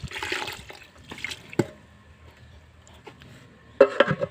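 Liquid splashing briefly at the start, a single knock about a second and a half in, then a sharp clatter of a dish or bowl near the end.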